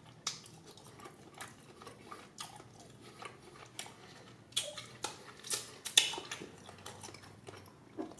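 Close-miked chewing of a mouthful of steak: irregular wet smacks and clicks of the mouth, loudest around five to six seconds in.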